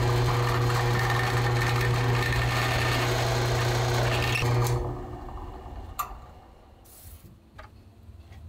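Benchtop drill press running with a steady hum as its bit bores into cherry wood, cutting off about five seconds in. A single sharp click follows about a second later.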